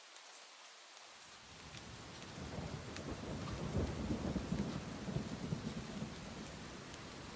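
Steady rain with scattered drop ticks. About a second in, a low rumble of thunder builds, peaks near the middle, then eases to a lower roll under the rain.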